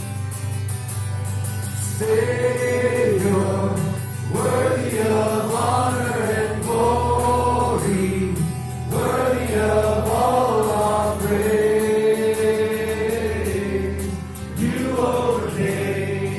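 Christian worship song: voices singing a melody in phrases over a steady instrumental backing, the singing coming in about two seconds in.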